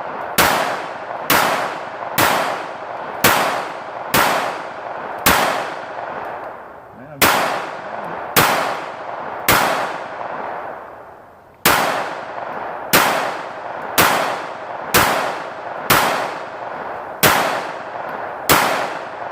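Glock 19 9mm pistol firing a full magazine of 115-grain full metal jacket rounds at a steel target, about sixteen shots at roughly one per second with a short pause about two-thirds of the way through. Each shot is followed by a ringing tail. Every round fires and cycles without a malfunction.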